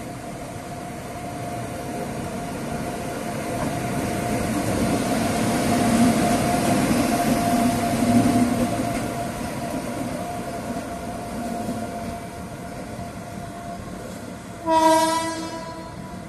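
Indian Railways WAP7 electric locomotive running light past at speed: its running noise builds to a peak as it passes about 6 to 8 seconds in, then fades as it moves away. Near the end comes one short, loud locomotive horn blast.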